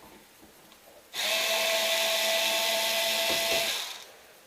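Power drill-driver spinning for about three seconds with a steady whine, then winding down, as it backs out the screw holding an outlet cover plate.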